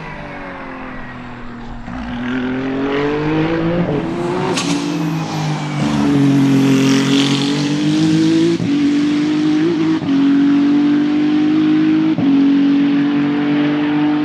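Race car engine at high revs, climbing in pitch a couple of seconds in and then held loud. It cuts briefly three times as it shifts up through the gears, the pitch edging up again after each shift.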